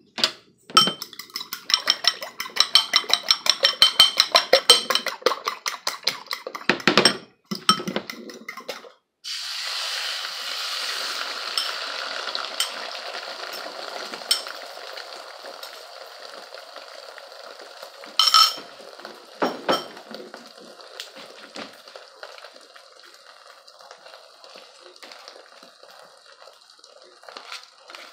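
A utensil beats eggs in a ceramic bowl, rapid clinking strokes for several seconds. About nine seconds in, the beaten eggs go into a hot nonstick frying pan and sizzle, the sizzle slowly fading, with a few knocks around the middle.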